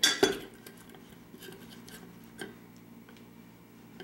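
Metal spoon clinking and scraping against a stainless steel bowl of chopped mixed seafood. A cluster of sharp clinks comes right at the start, then softer ticks and one more clink about two and a half seconds in.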